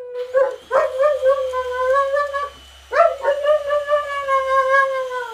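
German Shepherd howling: two long, steady howls, the second starting about three seconds in.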